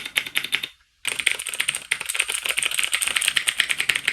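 Fast typing on a Cherry MX Board 3.0S tenkeyless mechanical keyboard with Cherry MX Blue clicky switches in a full aluminium case: a dense run of sharp key clicks. It stops briefly just under a second in, then carries on without a break.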